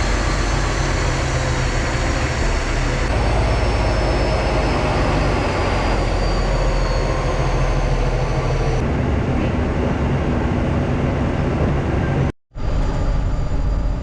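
Heavy dump truck running down the road: a steady engine drone with road noise and a faint high whine. The sound shifts abruptly a couple of times and cuts out for a split second near the end.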